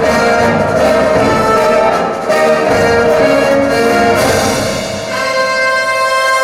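Orchestral music with prominent brass, played over hi-fi loudspeakers. Near the end it settles into a long held chord.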